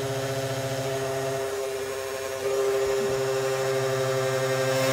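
Electric kitchen blender motor running steadily with a whine, getting louder about halfway through.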